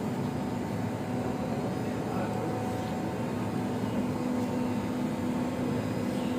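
Steady ventilation hum: an even rushing noise with a constant low drone underneath, unchanging throughout.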